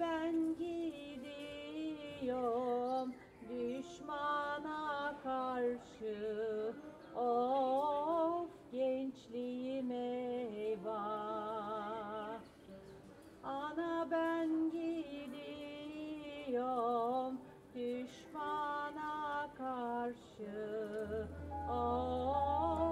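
A woman singing a slow melody with heavy vibrato, in phrases a second or two long separated by short breaths. A low steady hum comes in near the end.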